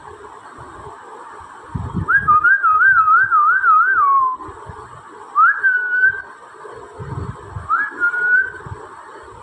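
A person whistling to call a dog. First a warbling whistle of about two seconds that trills up and down and drops off at the end, then two short whistles that slide up and hold.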